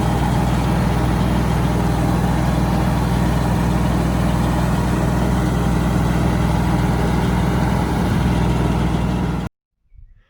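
Tractor engine running steadily at speed, driving a Titan BX42S PTO wood chipper with no branches being fed. The sound cuts off abruptly near the end.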